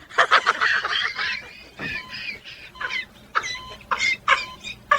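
A parrot calling with short squawks and chatter that bend up and down in pitch, broken into separate bursts.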